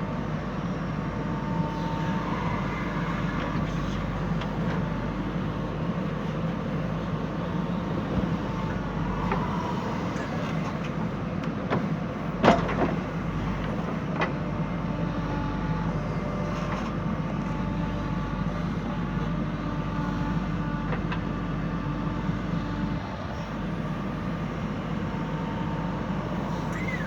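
Backhoe loader's diesel engine running steadily under work, with a few light knocks and one sharp, loud knock about halfway through.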